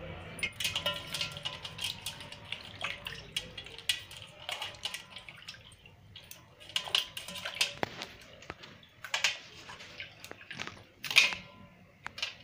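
Plastic combs being swished and rinsed by hand in water in an aluminium bowl: irregular splashes and drips, the loudest about eleven seconds in.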